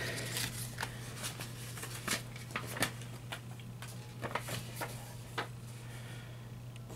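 Crisp paper rustles and light clicks in quick, irregular succession as a folded paper instruction sheet is handled, thinning out near the end.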